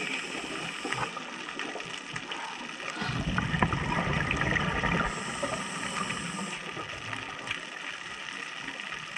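Scuba diver breathing through a regulator underwater: a gush of exhaled bubbles gurgles out for about two seconds, starting about three seconds in, over a steady light crackle of the water.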